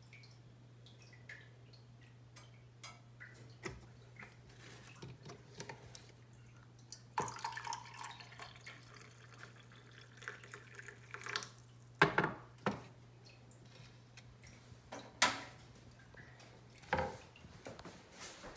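Coffee poured from a French press into a ceramic mug, a splashing stream lasting about four seconds, after faint scattered ticks and drips. A few sharp clinks and knocks follow, the loudest just after the pour ends.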